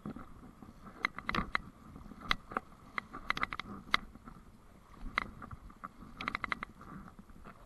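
Fly reel's ratchet clicking in short quick runs as line is worked on and off the spool while playing a fish, over the steady rush of river water.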